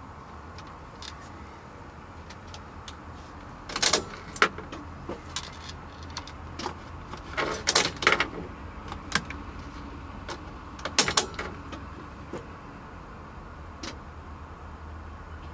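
Short clicks and light rattles at a Mercedes Sprinter van's driver's controls: the ignition key on its keyring and the instrument-cluster clock button being worked in several bursts, about 4 s, 8 s and 11 s in, over a steady low hum. A single click near the end comes as the ignition switches on.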